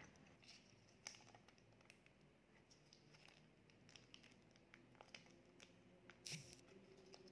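Small plastic condiment sachet being handled and torn open: faint crinkling and scattered small clicks, with one short, sharper tear a little after six seconds in.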